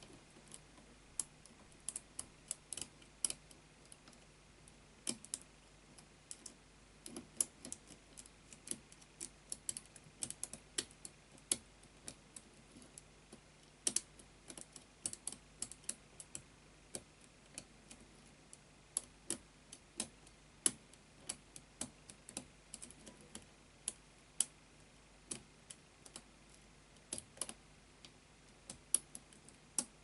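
Lock pick and tension wrench working the pins of a brass Avocet pin-tumbler padlock: small, sharp metallic clicks and ticks at an uneven pace, a few a second, as the pins are lifted under light, slowly increasing tension.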